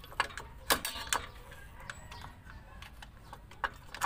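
Metal-on-metal clicks and taps as a screwdriver tip works at the shoe springs and hardware of a Toyota Innova's rear drum brake. A few sharp clicks come in the first second or so, then scattered fainter ones.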